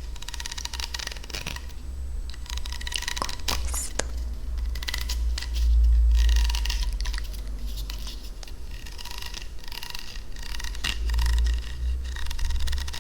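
Close-miked ASMR scratching and scraping: a dense crackle of fine clicks and rustles. A low rumble swells up about five and a half seconds in and again near eleven seconds.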